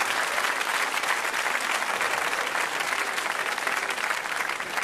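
Studio audience applauding, a dense, steady clapping that eases off a little near the end.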